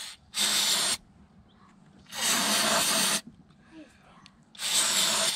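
Aerosol starter fluid sprayed into the air intake of a 1999 Evinrude Ficht 150 outboard: three short hissing bursts about two seconds apart. The engine is being primed for a cold start.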